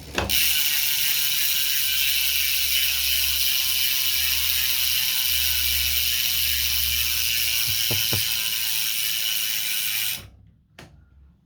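ARC MT-007 rear hub freehub buzzing as the freshly built carbon gravel wheel coasts, its pawls ratcheting in a loud, steady whir. It cuts off sharply about ten seconds in.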